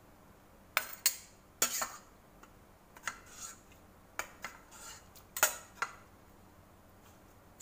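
Metal ladle and stainless steel pot clinking and knocking as noodle soup is ladled into a bowl: a string of about eight sharp clinks, unevenly spaced.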